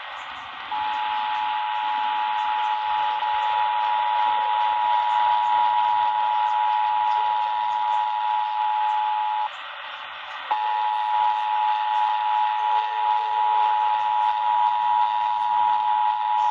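Emergency Alert System two-tone attention signal, 853 and 960 Hz sounded together as one steady, harsh alarm tone, over a steady narrow-band radio hiss. It breaks off for about a second around nine and a half seconds in, then resumes.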